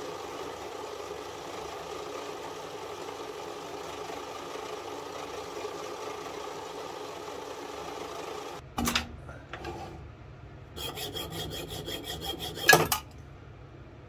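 Small bench lathe running steadily while a needle file rasps against the small steel sight blank spinning in its chuck. The lathe stops abruptly about two-thirds of the way in, followed by a metallic click, then a quick run of rapid rattling ticks that ends in one sharp knock as the part is handled at the chuck.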